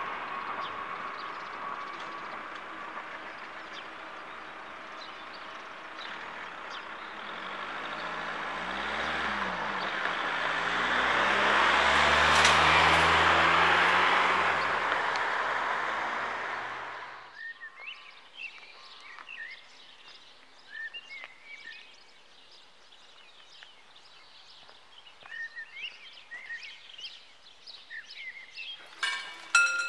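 A class 440 electric multiple-unit train fades away, then a car passes over the level crossing, louder with a rise and fall in pitch. After that comes faint birdsong, and just before the end the crossing's electromechanical bells start ringing as the barriers begin to close.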